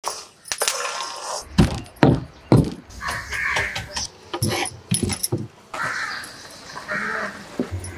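Kitchen utensil sounds: a spatula knocking and scraping against a kadai and a wooden board, a string of sharp clicks with short scrapes in between.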